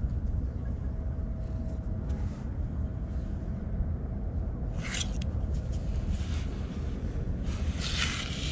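Steady low rumble of wind buffeting the microphone on an open beach, with brief scraping of hands digging in wet sand about five seconds in and again near the end.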